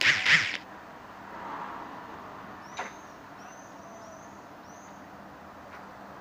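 A short, loud hiss of released air from the standing SKPL railcar at the start, over a steady low background. About three seconds in there is a single sharp knock, followed by a few short, high bird chirps.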